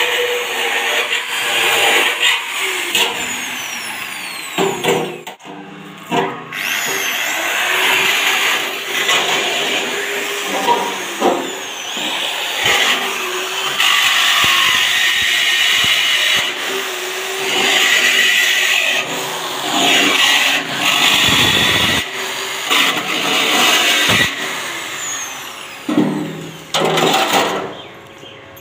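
Handheld electric drill boring holes through sheet steel, running in repeated bursts of a few seconds with short pauses between.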